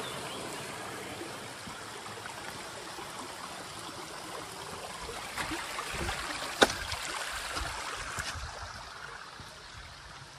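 Mountain stream running, a steady rush of water, with a few sharp clicks over it, the loudest about two-thirds of the way in.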